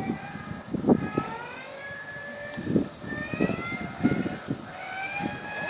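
Hand-cranked inertia (flywheel) starter of a Boeing PT-17 Stearman being wound up: a whine rising steadily in pitch as the flywheel spins up, with irregular low thumps under it.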